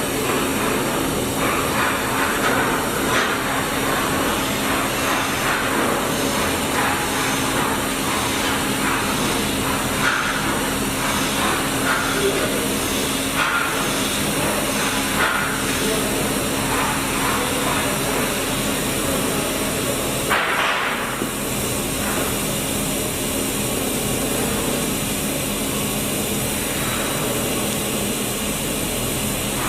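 Welding arc on a pipe joint crackling and hissing steadily, with a faint steady hum underneath and a brief louder burst about twenty seconds in.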